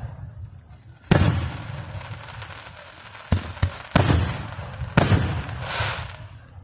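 Aerial fireworks shells bursting: about five sharp bangs spread across the stretch, the biggest ones each trailing off in a long rolling rumble.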